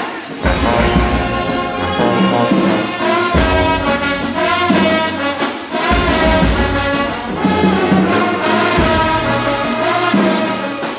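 High school marching band playing: sousaphones push heavy bass phrases under loud trumpet and other brass chords, with saxophones and a bass drum.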